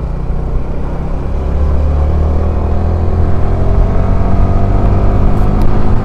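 Sport motorcycle's engine accelerating away from a toll booth, its note climbing steadily in pitch and getting louder as it picks up speed.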